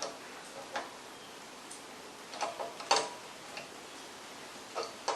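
Scattered light metal clicks and knocks, about seven at uneven intervals, of a wrench working a brass fitting tight into the aluminium casting of a pressure-washer pump.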